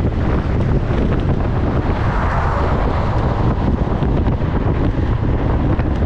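Steady, heavy wind rushing over the microphone of a moving vehicle at road speed, with a low rumble underneath and a brief swell of hiss about two seconds in.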